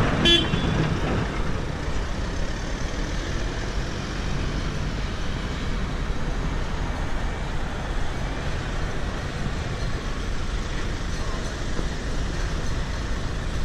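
A short sharp sound right at the start, then a steady rumble of road traffic and outdoor noise.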